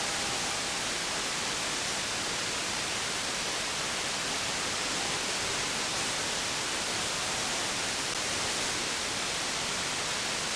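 CB radio receiver hissing with steady band static on an open channel between transmissions, with no station keyed up. A faint steady whistle sits under the hiss for the first second.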